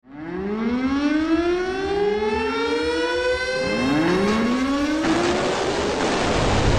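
Air-raid siren winding up in repeated rising wails that overlap one another. From about five seconds in, a loud rushing roar of missile launches joins it.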